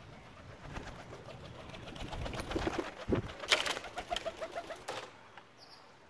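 Pigeons cooing, with a flurry of sharp wing flaps about three and a half seconds in, followed by a quick run of short notes that stops about a second before the end.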